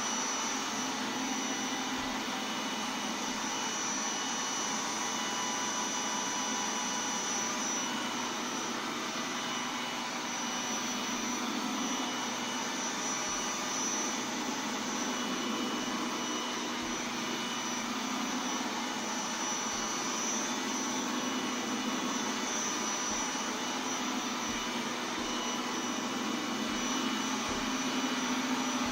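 iRobot Roomba 980 robot vacuum running: a steady whir with a faint high whine that wavers in pitch now and then, and a few faint low knocks.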